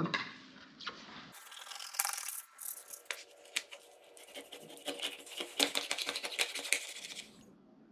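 Kitchen knife cutting a whole trout into pieces on a wooden cutting board: irregular small clicks and taps of the blade through the fish and against the board, starting about a second in.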